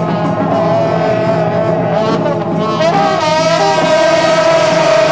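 Taiwanese temple ritual music: long brass horns blaring held notes over a dense band, with percussion strokes in the first half and a change of pitch about three seconds in.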